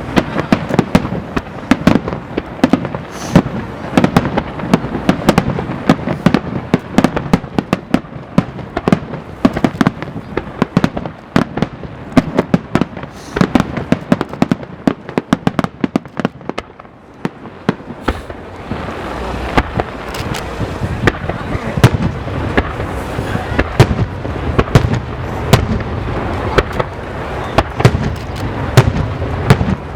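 Fireworks display: aerial shells bursting in rapid succession, a dense stream of sharp bangs and crackles that thins out briefly about halfway through, then picks up again.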